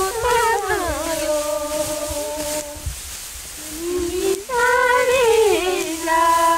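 Unaccompanied solo voice singing a wheat harvesting song: long held notes joined by sliding, ornamented turns, with a short pause for breath about three seconds in.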